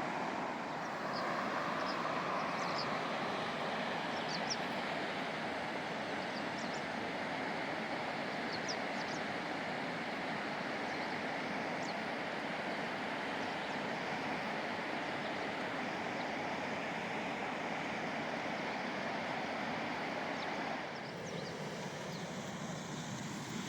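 Steady rush of flowing river water, an even noise with a few faint high chirps over it. It drops slightly in level about 21 seconds in.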